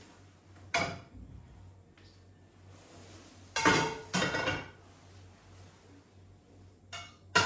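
Fry pans being set down on a gas hob's metal grates: a clank about a second in, a louder run of clattering knocks around the middle, and two more knocks near the end.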